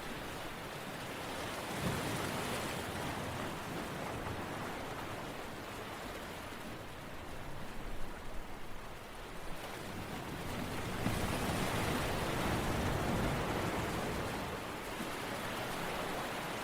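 Continuous rushing water noise of an ambient relaxation track, swelling louder about two seconds in and again near the end, with a brief crackle in the middle.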